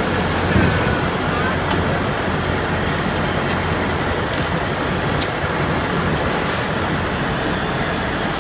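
Kubota DC-105X combine harvester running with its diesel engine, a loud steady machine noise with a low hum, with a few faint ticks.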